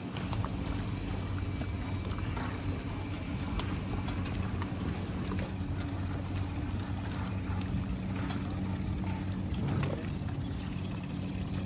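A boat engine idling steadily with an even low hum, while small ripples of water lap and splash.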